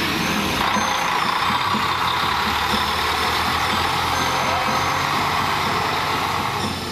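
Mercedes-Benz touring coach's diesel engine running as the coach pulls away, a steady noise that drops slightly near the end.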